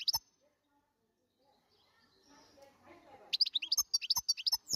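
European goldfinch singing: a brief burst of quick twittering notes at the start, a pause, then a longer fast run of sharp high notes from about three seconds in, ending on a falling note.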